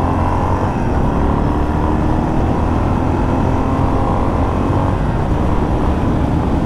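Yamaha XT 600's air-cooled single-cylinder four-stroke engine running steadily, with small shifts in pitch.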